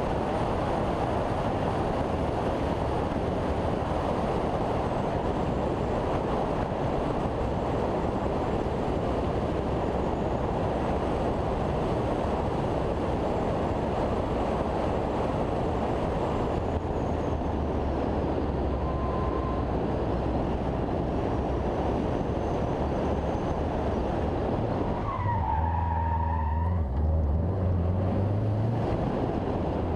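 Car driving briskly along a twisting road, heard from a bonnet-mounted camera: a steady rush of wind and road noise over the engine, which comes through as a low hum in the second half. A brief wavering squeal comes about 25 seconds in.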